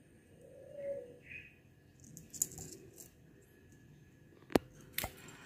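Small hardware for the wall bracket, wall anchors or screws, being handled: light rustling and clicking, with two sharp clicks near the end.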